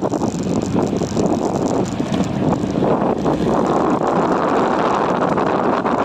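Wind buffeting the microphone on a moving motorcycle, a steady rushing noise.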